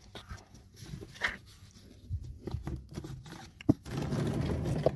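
Faint clicks and scrapes of hands handling small tools and parts, with one sharp click about three and a half seconds in and a steadier rustle near the end.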